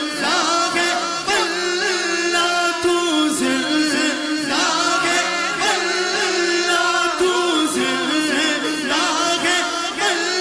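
A male naat reciter singing an Urdu devotional naat in long, ornamented, wavering notes over a steady held drone.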